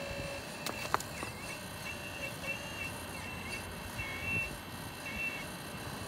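Radio-controlled hydraulic excavator's pump and valves giving a steady high whine that wavers as the grapple arm moves, with a couple of sharp clicks about a second in.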